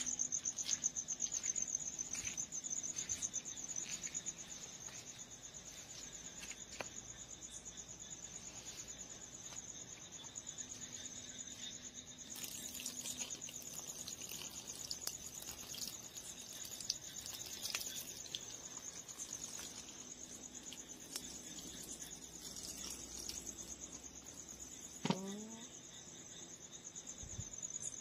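Crickets chirping in a steady, high, finely pulsing trill, with light scattered clicks and scuffs from dogs' paws on the court's tiles. Near the end a play-fighting dog gives one short rising yelp.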